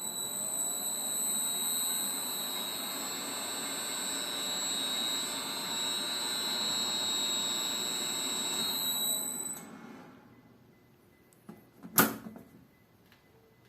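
Frequency inverter driving an electric motor: a steady high-pitched whine over the motor's running noise, which dies away about ten seconds in. A single sharp click follows about two seconds later.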